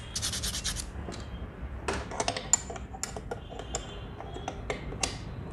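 A small sewing-machine part being rubbed by hand to roughen its surface, rapid scraping strokes for about the first second. Then a scatter of light clicks and taps as the part is fitted into the sewing-machine head.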